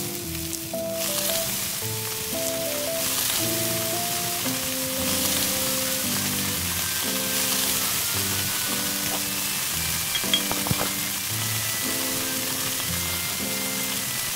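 Pork belly sizzling on a hot cauldron-lid griddle: a steady frying hiss that comes up about a second in, over light background music.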